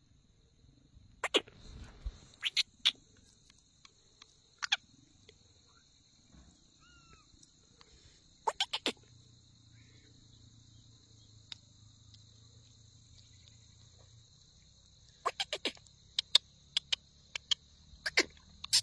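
Sharp taps in quick clusters of two to four, a male black francolin pecking at the rock it stands on, over steady high-pitched insect chirring. A faint short bird chirp about seven seconds in.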